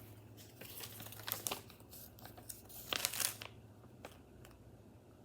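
Paper instruction manual rustling and crinkling as it is handled, in a run of short rustles that is loudest about three seconds in, then dies away to a single faint click.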